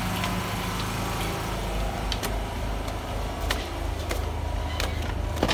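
Footsteps of slippers on tiled stairs, a sharp slap about every second and a half, over a steady low engine hum.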